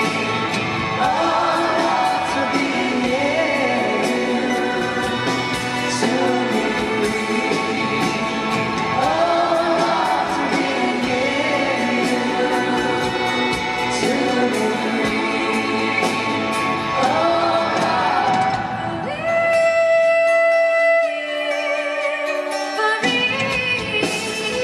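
Live concert recording of a male lead singer and three female backing singers singing in harmony over a band. About nineteen seconds in, the band drops away and the voices hold notes alone for a few seconds, then the band comes back in near the end.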